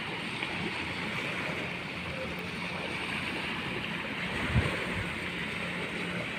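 Steady wash of wind and surf at the shoreline, with a faint low hum underneath and one dull thump about four and a half seconds in.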